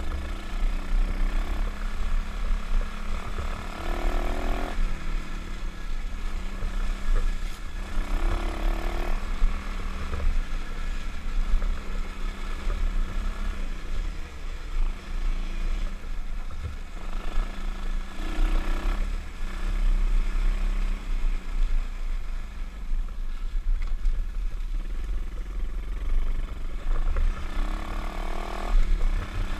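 125cc pit bike engine running under way on a dirt trail ride, revving up and easing off a few times, with low rumbling wind on the microphone.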